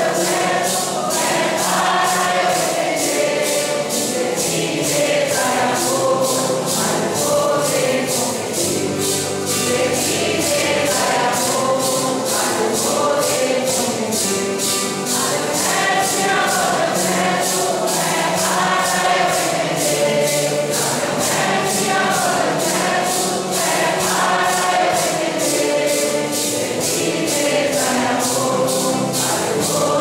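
Congregation of men and women singing a Santo Daime hymn, accompanied by acoustic guitar and a steady shaken percussion beat.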